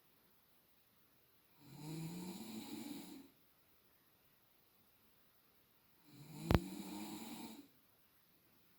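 A sleeping woman snoring: two snores, each about a second and a half long, with quiet breaths between them. A single sharp click lands in the middle of the second snore.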